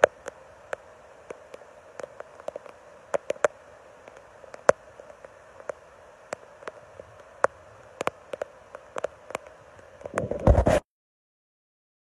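Steady hiss of floodwater flowing around a stranded car, with scattered sharp clicks through it. About ten seconds in there is a loud rumble of the phone being handled, then the sound cuts out completely.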